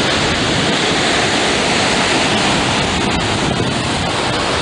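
Ocean surf washing onto a sandy beach: a steady rushing hiss, with wind blowing on the microphone.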